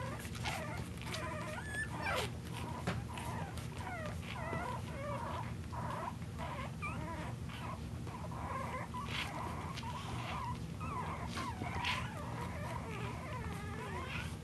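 Boston terrier puppies whimpering and squeaking, many short, wavering high calls overlapping one another without a break.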